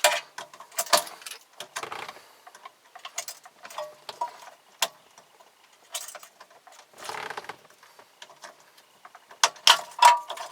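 Irregular plastic clicks and rattles of wiring-harness connectors being unlatched and worked loose from the back of a car radio, with a few short scrapes and a cluster of louder clicks near the end.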